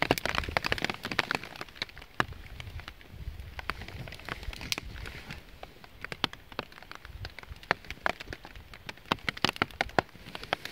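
Small wood fire of split sticks crackling, with sharp, irregular pops throughout, over a low rumble of breeze.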